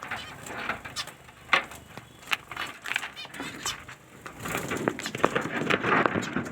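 Birds feeding: a run of sharp, irregular clicks and taps mixed with scattered bird calls, growing busier and louder about two thirds of the way through.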